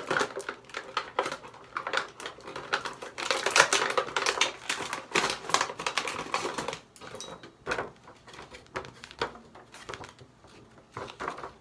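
Hands handling a perfume and bath set's plastic packaging and bottles: a dense run of rapid clicks and rattles for about seven seconds, then sparser clicks.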